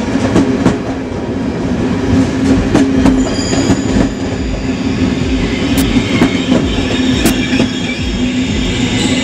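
Passenger train rolling slowly into a station platform, its wheels clacking over rail joints. From about three seconds in, high wheel or brake squeal comes in as it slows.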